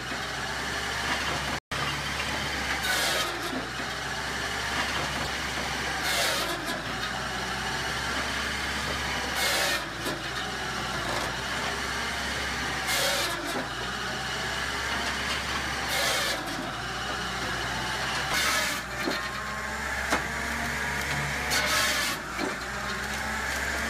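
Cord King Model 44 firewood processor working off a farm tractor's PTO: the tractor engine runs steadily while the machine's saw and splitter work through logs. A short high burst of noise comes about every three seconds.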